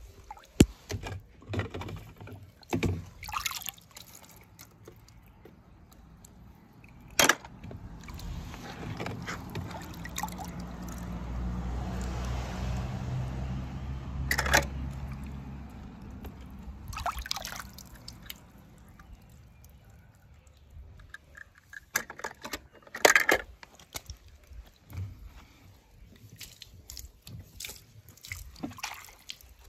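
Water sloshing and dripping as toys are handled in it, with scattered sharp clicks and knocks. A longer stretch of rushing, pouring water swells in the middle and fades.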